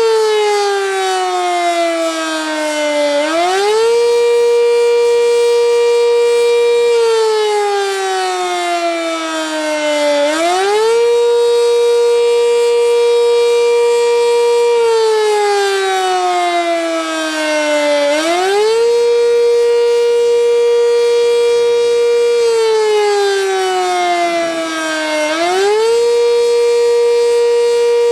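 Sentry 10V outdoor warning siren sounding a test. A steady high tone sags lower in pitch over a few seconds, then climbs quickly back, about every seven and a half seconds.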